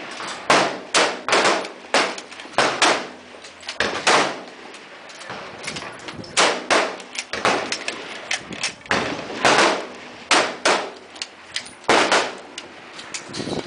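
Rifle shots from several shooters along the firing line, more than a dozen at irregular intervals, some coming in quick pairs, each trailing a short echo.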